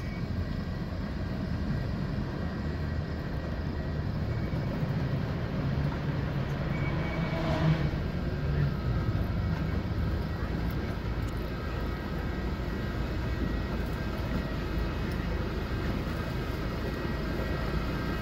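Miniature ride-on train running slowly toward the platform: a low, steady, engine-like rumble, with one brief louder sound about seven and a half seconds in.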